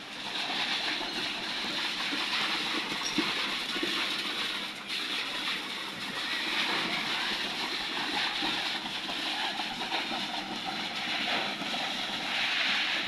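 Steady machinery noise from a concrete pour: a mobile concrete pump and transit mixer truck running continuously.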